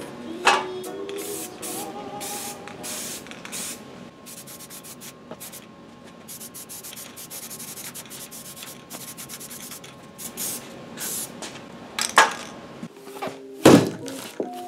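A rapid series of short hissing spray bursts, each well under a second, with sharp knocks about half a second in and near the end, the loudest about 13.7 s in.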